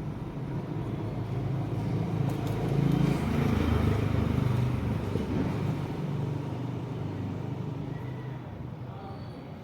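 A motor running with a low, steady hum that grows louder about three seconds in and then slowly fades.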